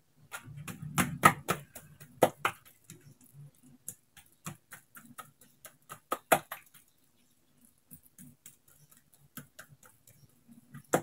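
Hands slapping and patting soft, oiled dough against a countertop while stretching it out thin for melwi flatbread: irregular sticky slaps and taps, busiest in the first few seconds, with a sharp slap about six seconds in.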